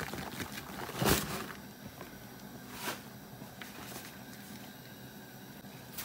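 Dry flour tipped onto minced meat in a bowl: soft rustling and handling noises, with a short louder rush about a second in and a smaller one near three seconds.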